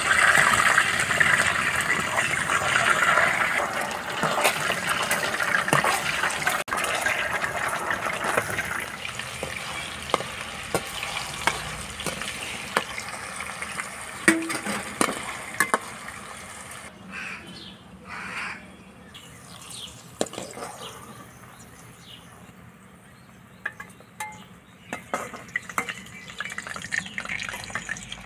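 Gulab jamun dough balls sizzling as they deep-fry in hot oil, with the clicks of a slotted metal spoon against the pan. The sizzle is loudest for the first several seconds and then dies down to a quieter crackle.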